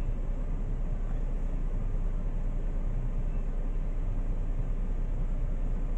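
Steady low background rumble and hum with a faint hiss: the room noise of the narration track, with no other sound standing out.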